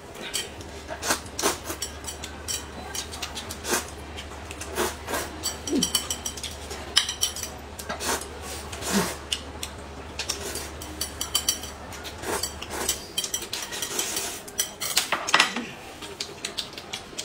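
Chopsticks clicking and scraping against a plate while noodles are eaten from it, with mouth sounds of eating between the irregular sharp clicks.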